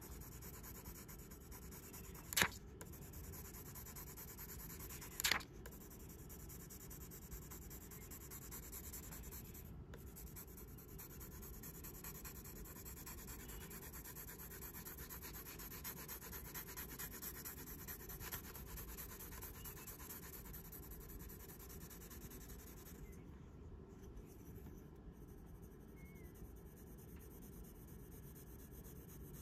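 Graphite pencil rubbing across paper as it shades a broad area, held slanted so the side of the lead lies almost flat on the sheet. The sound is a faint, steady scratchy hiss, with two sharp taps about 2.5 and 5 seconds in.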